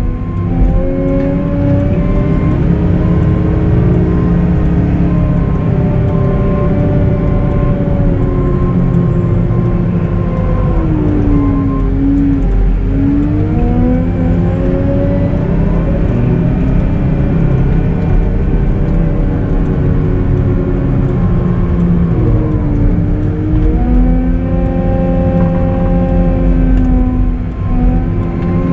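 Cat 906M compact wheel loader's diesel engine working steadily under load while plowing snow, its revs dropping and climbing again twice. An intermittent beep sounds for about the first ten seconds.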